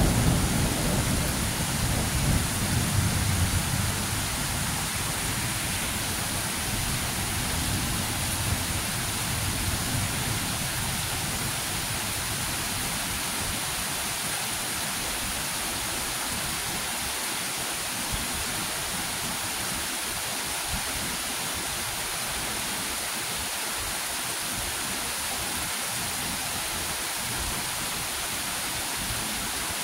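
Steady rain hiss, with a low rumble of thunder at the start that fades away over the first ten seconds or so.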